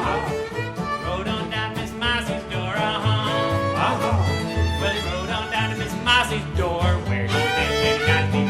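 Instrumental bluegrass music with fiddle and guitar over a steady bass beat.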